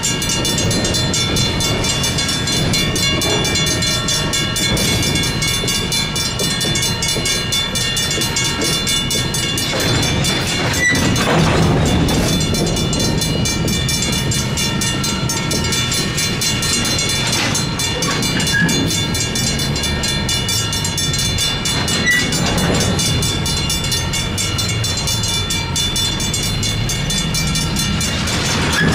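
Railroad crossing bell, a Safetran hybrid bell, ringing continuously in fast even strikes over the low rumble of diesel switching locomotives and the clatter of freight cars rolling through the crossing, with a few louder knocks along the way.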